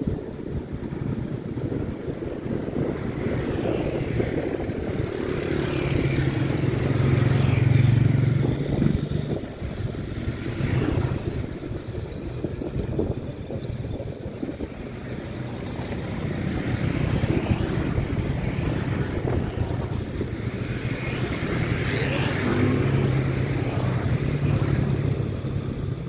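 Outdoor vehicle rumble: a continuous mix of passing motor traffic with a low engine hum, swelling as vehicles pass twice, first at about seven to nine seconds in and again at about twenty-one to twenty-four seconds in.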